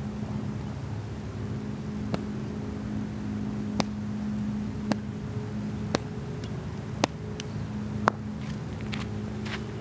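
Footsteps of a cricket bowler walking back toward his run-up mark: single sharp steps roughly a second apart, growing louder as he comes closer, over a steady low hum.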